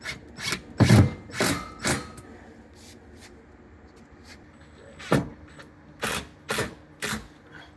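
Irregular sharp knocks and clunks of hard objects being handled and struck during installation work: a quick cluster in the first two seconds, then a few more spaced about half a second apart later on.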